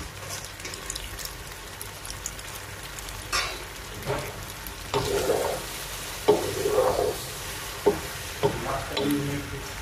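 Wooden spoon stirring and tossing penne pasta in a nonstick pot over a frying sizzle, with repeated scrapes and knocks of the spoon that come more often from about three seconds in.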